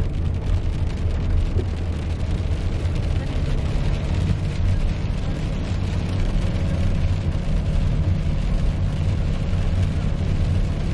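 Steady low drone of a car's engine and tyres on a wet road, heard from inside the cabin while driving.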